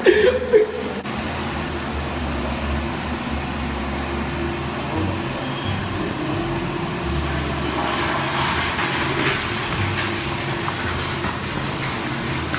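A couple of knocks in the first second, then a steady low rumbling noise with no clear pattern.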